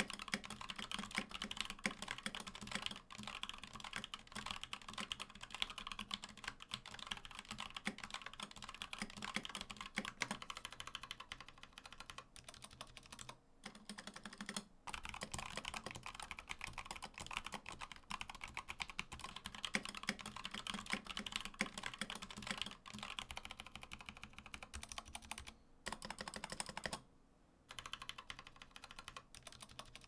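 Typing on an Input Club Kira mechanical keyboard fitted with tactile Hako box switches, Hako Violets and Hako Clears in turn. The keystrokes make a steady, rapid clatter broken by a few short pauses.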